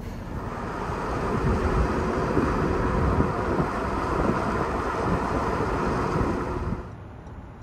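Wind buffeting the microphone: a steady rushing with irregular low gusts that cuts off shortly before the end.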